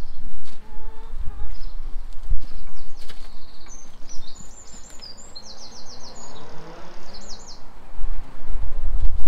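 A small songbird sings a rapid series of high, repeated trilled notes for a few seconds in the middle. Under it runs a low rumbling noise, loudest at the start and again near the end.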